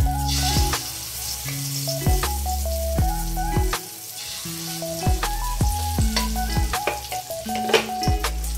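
Egg and eggplant omelette mixture sizzling in hot oil in a wok, with a louder burst of sizzle at the start as more mixture is spooned in. Background music with a beat and held bass notes plays over it.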